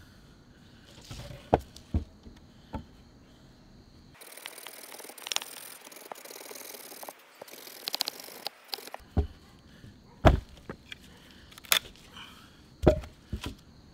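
Wooden knocks of branches and logs being handled and set down, with a few seconds of a hand saw rasping through a branch in the middle. The sharpest knocks come near the end.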